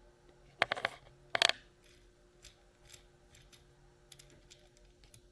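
Small hard parts clicking and clinking together as they are handled: two quick clusters of sharp clicks about a second in, then a few faint ticks.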